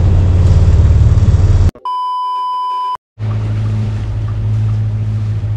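A steady low drone from the sailing yacht motoring along cuts out just before two seconds in. A censor-style bleep, one steady high tone, sounds for about a second in its place. After a short silence the drone returns.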